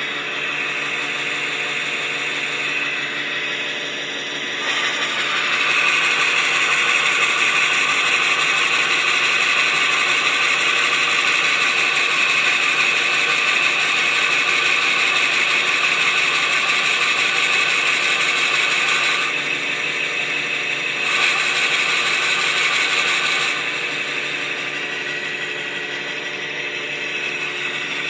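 Vintage Hercus metal lathe running, its gear train giving a steady mechanical whine. It grows louder and brighter about five seconds in, drops back briefly around twenty seconds, swells again, then eases off for the last few seconds.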